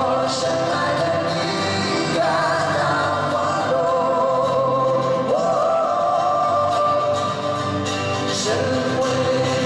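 Live pop-rock band with two male singers holding long notes in harmony over guitars and drums.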